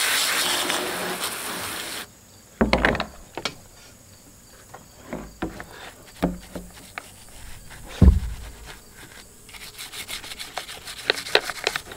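Water spraying from a garden hose nozzle onto a chainsaw, cut off abruptly about two seconds in. Then a few knocks as the saw is handled, the loudest about eight seconds in, and a stiff bristle brush scrubbing the saw's plastic housing in quick short strokes toward the end.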